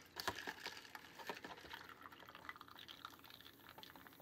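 Cherry cola mix trickling from the spout of a 1993 Mattel McDonald's Happy Meal Magic drink fountain toy into a small cup. It is faint, with fizzing and many small irregular drip ticks.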